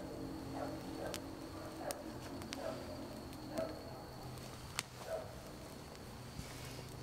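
Wood campfire crackling, with sharp pops from the burning logs every second or so. A steady high insect trill runs behind it.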